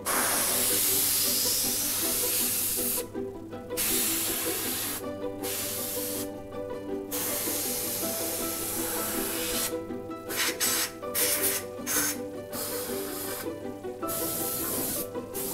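Air-fed spray gun misting ACF50 anti-corrosion fluid onto a motorcycle, a loud hiss in long bursts with short pauses between, then several quick short squirts past the middle. Background music plays throughout.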